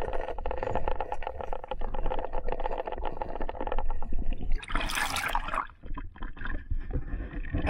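River water heard through an action camera held underwater: a steady muffled rush with many small clicks and knocks, then a loud splash and rush of water about five seconds in as the camera breaks the surface and is lifted out.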